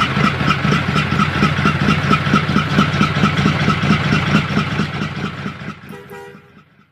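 Diesel truck engine idling with a rapid, even chugging beat, fading out over the last couple of seconds.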